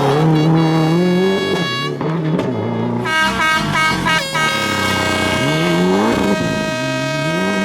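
Rally car engine at full throttle, climbing in pitch several times and dropping back at each gear change, with a steady high-pitched tone running over it through the second half.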